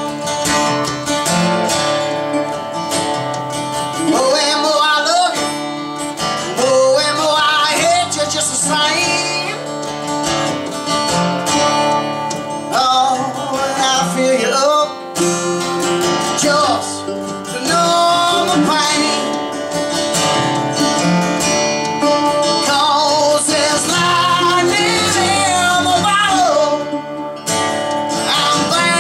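A man sings to his own strummed acoustic guitar in a solo unplugged song. The singing comes and goes in phrases over steady strumming.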